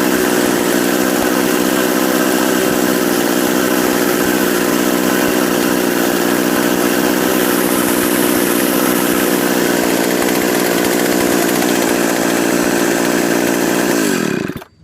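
Pioneer Partner S55 two-stroke chainsaw idling steadily at a high idle, then switched off: the pitch sinks and the engine stops just before the end.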